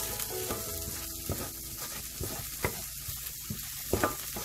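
Chopped onions, ginger-garlic and curry leaves frying in oil in a steel pan, sizzling steadily. A stirring utensil scrapes and knocks against the metal pan, giving scattered clicks.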